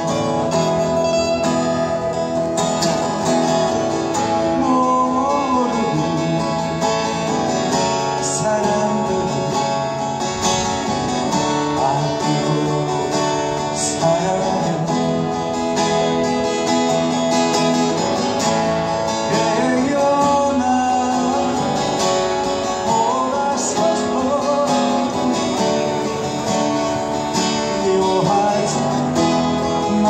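Two acoustic guitars playing together, strummed and picked, with a man singing a melody over them at times.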